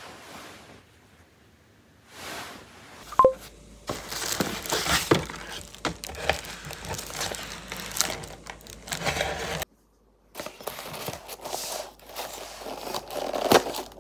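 Honeycomb kraft paper wrapping crinkling and crackling as a twine-tied package is handled, with many sharp crackles. A brief sharp tone sounds about three seconds in.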